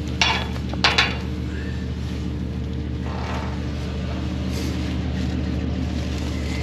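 Tow truck (wrecker) engine idling steadily, with three sharp knocks in the first second as the steel winch cable is handled.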